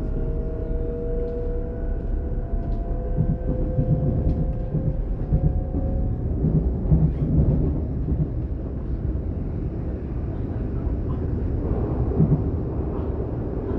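DB Class 422 electric multiple unit running between stations, heard on board: a traction whine rising slowly in pitch as the train gathers speed, fading out about six seconds in, over a steady rolling rumble with a few short knocks from wheels and track.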